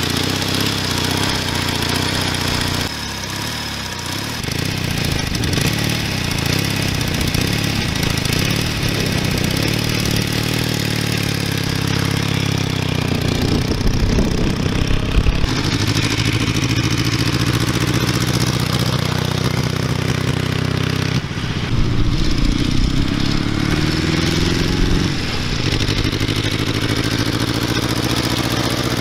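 1923 FN M50's 748 cc inline four-cylinder engine running, first standing, then under way as the motorcycle is ridden off and back past. Its pitch climbs and drops a few times in the second half as it is revved and shifted.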